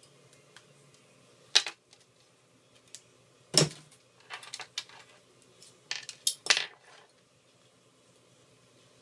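Small metal tools and parts clinking and clattering on a hard work surface during an iPhone 4 teardown: a sharp clack about a second and a half in, a louder one near the middle, then two quick clusters of clinks.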